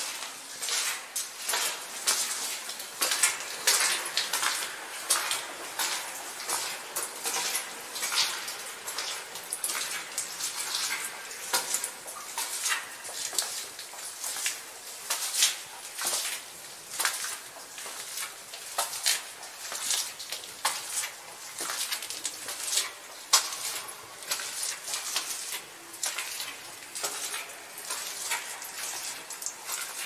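Footsteps crunching and scuffing over small loose rocks on a cave floor, echoing. The steps come irregularly, several a second, some sharper clicks standing out.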